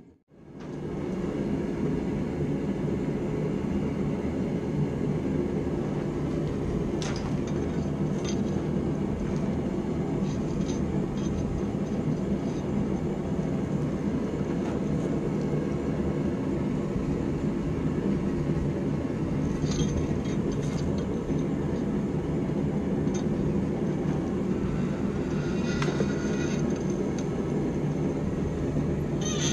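Steady low roar of a propane gas forge, with a few light metallic clinks from a hot railroad spike being worked in a vise.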